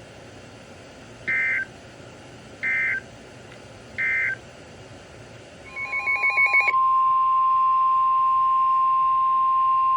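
Emergency Alert System tones on NOAA Weather Radio: three short warbling bursts of SAME digital data, about a second and a half apart, ending one warning message, then a longer data burst opening the next alert. About seven seconds in, the loud, steady 1050 Hz weather alert tone sounds.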